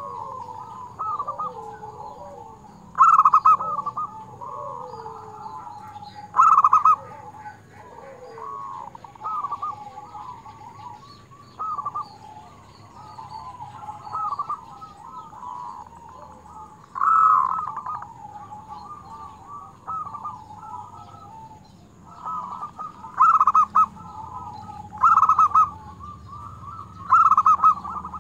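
Zebra doves (perkutut) cooing: loud, short, staccato phrases come several times, bunched toward the end, over a steady run of quieter overlapping coos.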